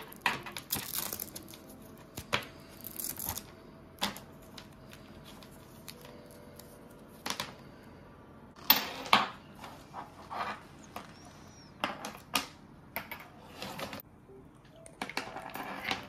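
USB cables and their plastic connectors being handled on a wooden desk: rustling with scattered sharp clicks and knocks, two of them louder about nine seconds in.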